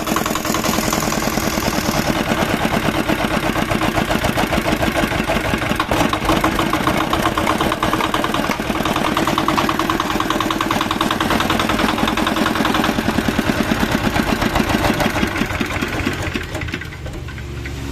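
Single-cylinder R175 7 HP diesel engine running steadily, with a fast, even chugging pulse. It goes quieter near the end.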